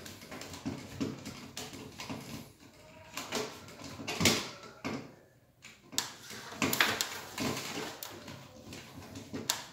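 Irregular clicks, knocks and scrapes of hands working with tools and small metal hardware, with the sharpest knocks about four and about seven seconds in.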